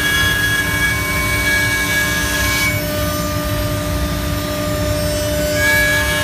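FMT Patriot CNC router spindle running, its bit cutting a circle through thick white oak with a steady, high whine over a low rumble. The whine's upper tones change about halfway through and return near the end as the cut moves on around the curve.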